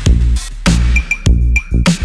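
Loud electronic music: a heavy bass line under a punchy drum-machine beat.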